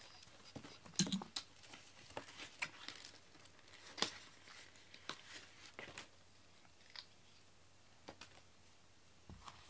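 Scattered soft taps and rustles of a feathered cat teaser flicked and dragged over a foam floor mat during cat play, the sharpest taps about a second in and again around four seconds in.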